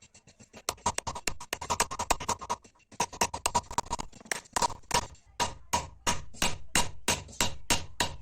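A hand tool working metal in quick repeated strokes, about three to four a second, getting louder about three seconds in, with a faint metallic ring under them.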